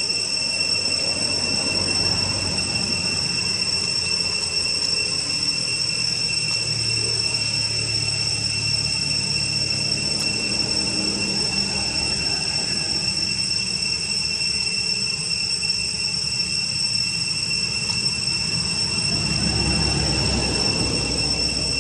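Steady high-pitched insect drone, holding one unchanging whine throughout, over a low rumble that swells near the end.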